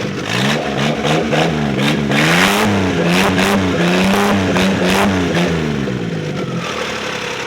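Freshly rebuilt Suzuki F6A three-cylinder engine revved in repeated blips, its pitch rising and falling again and again. It settles back to a steady idle near the end.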